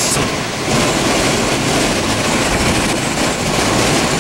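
Loud, steady roar of a multi-vortex tornado and its strong inflow wind, a continuous rushing rumble with no break.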